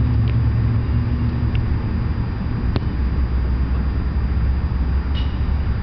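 Steady low rumble, with one sharp knock about two and three-quarter seconds in.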